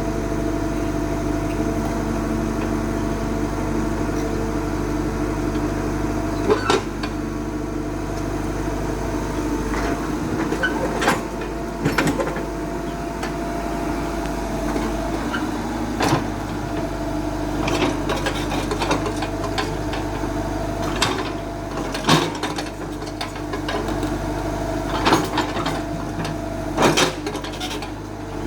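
Excavator's diesel engine running steadily, with sharp knocks and clanks every few seconds.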